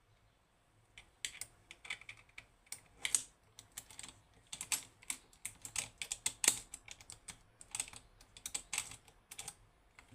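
Lock picks working inside a Western Electric 30B eight-lever lock: irregular metallic clicks and short scrapes as the levers are lifted and set, starting about a second in.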